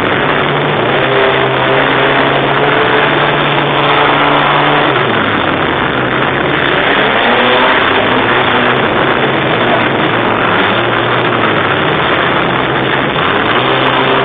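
Car engine held at high revs, running loud and steady, its pitch dropping a step about five seconds in.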